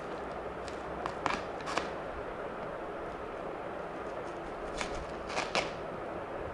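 Clear plastic packaging bag crinkling as hands pull it open, in two short spells of sharp crackles, about a second in and again near the end, over a steady background hiss.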